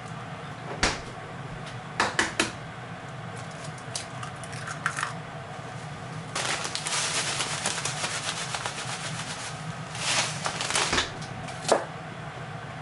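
Kitchen cooking sounds: utensils clicking and knocking against cookware and dishes in short clusters. There is a stretch of hissing for about three seconds in the middle, over a steady low hum.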